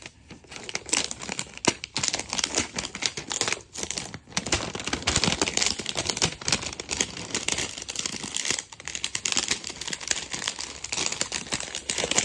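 Clear plastic protective film being peeled off a new smartphone's back and screen and handled, crinkling and crackling, with a couple of brief breaks.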